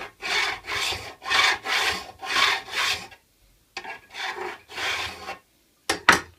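A metal file drawn back and forth across the edge of a steel card scraper clamped in wood, jointing the edge flat as the first step of sharpening. About five rasping strokes, a short pause, three more, then a sharp knock near the end.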